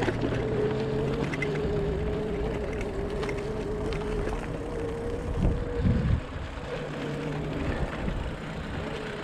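Electric bike motor whining at a steady pitch over the rumble of tyres on a dirt trail and wind on the chest-mounted microphone. There are a couple of low bumps about five and a half seconds in, after which the whine fades, and it comes back right at the end.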